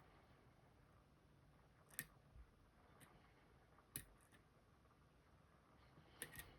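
Faint, sharp clicks of a lock pick working the pins of an Assa Guideline lock while testing for a barrel driver stuck in the plug's milling: two clear clicks about two seconds apart, a softer one between them, and a few quick small clicks near the end.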